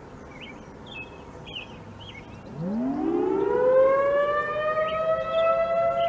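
Outdoor tornado warning siren winding up for a test. It starts about two and a half seconds in, sweeps steeply up in pitch and levels off into a steady tone.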